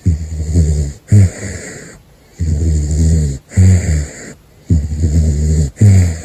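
A sleeping caracal snoring: a run of short, low, rasping snores, about one a second.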